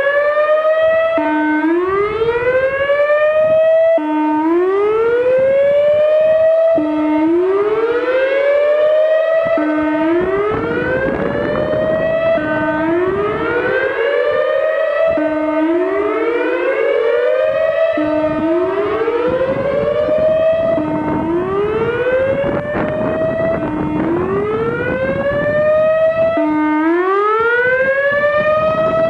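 Whelen WPS 3016 electronic outdoor warning siren sounding its whoop tone: a short low note sweeping up in pitch, repeated about every three seconds, with a rough, noisy edge under the sweeps through the middle. The siren was malfunctioning on this tone, which the uploader figured could be a blown speaker driver.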